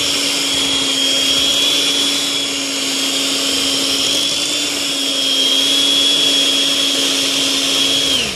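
Electric hand mixer running steadily at one speed, its twin beaters churning thick cake batter, with a constant high whine over a motor hum. Right at the end it is switched off and the whine sags in pitch as it stops.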